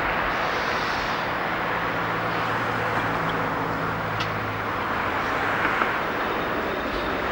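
Diesel train running, a steady drone over a rushing noise, with a low engine hum that fades about five seconds in.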